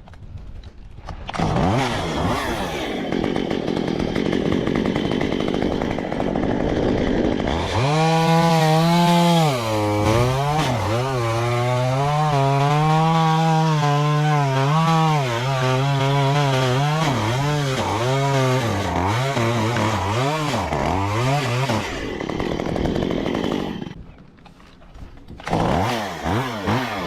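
Two-stroke chainsaw revving up, then held at high revs for a long stretch, its pitch wavering and dipping as the chain loads up cutting through wood. Near the end the engine drops away for a moment, then revs again in short rises.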